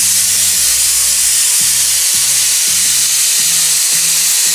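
Aluminium pressure cooker whistling: steam blasting out loudly under the weight valve in one long, steady hiss. This is the single whistle that tells the cook the rice is done and the heat can go off.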